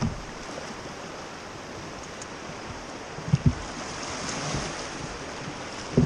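Rogue River water rushing and swirling in a fast canyon eddy around a raft, growing a little louder about four seconds in. A few short low thumps stand out: one at the start and two close together about three and a half seconds in.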